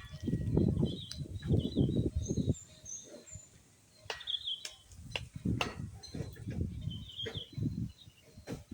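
Strong wind buffeting the microphone in irregular gusts, with birds chirping.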